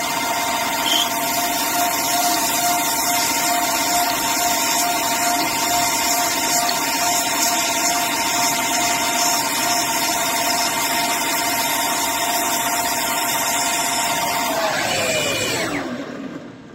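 CNC lathe parting off a bar with feed rate variation switched on to break the chips: a steady spindle-drive whine over a steady hiss. Near the end the whine falls in pitch as the spindle slows, and the sound drops away.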